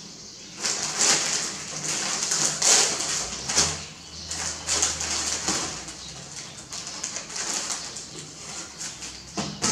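Plastic snack wrappers and packaging crinkling and rustling in irregular bursts as packs are handled and lifted out of a gift basket.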